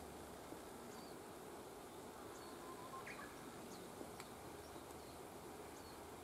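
Faint steady background hiss with scattered short, high bird chirps, several a second apart.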